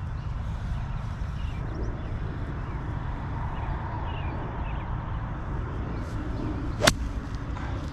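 A golf club strikes a ball once near the end, a single sharp crack, over a steady low wind rumble on the microphone and faint bird chirps.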